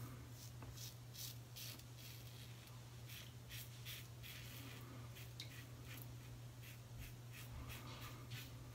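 Razor blade scraping through lathered stubble on the cheek in short strokes, a few soft rasps a second, over a steady low hum.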